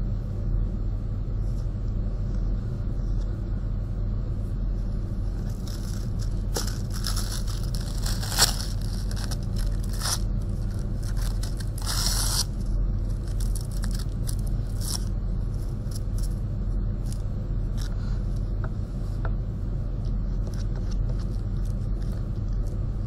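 Tissue paper rustling and crinkling as thin strips are handled and pressed down with glue, in irregular bursts mostly between about six and thirteen seconds in, with one sharp tap around eight seconds in. A steady low hum runs underneath.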